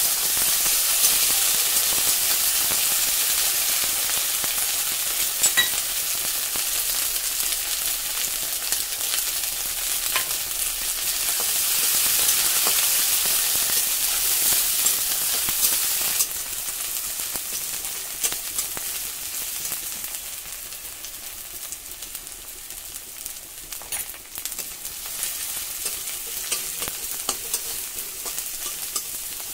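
Chopped vegetables and bay leaf sizzling in hot oil in a kadai, stirred with a spatula that scrapes and taps the pan now and then. The sizzle drops noticeably a little past halfway and carries on quieter.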